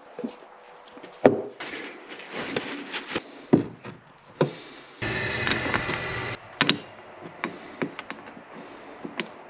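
Paper towel rubbing and rustling on a Yamaha TW200's metal rear drum brake panel as brake dust is wiped off, with several sharp knocks of the panel against the workbench, the loudest about a second in.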